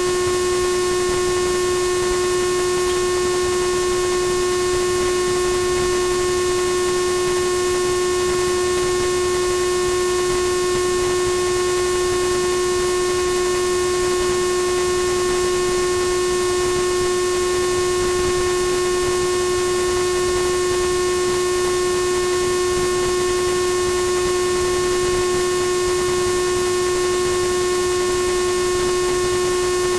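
A steady droning tone with overtones, unchanging in pitch and loudness, like an electronic hum or buzz.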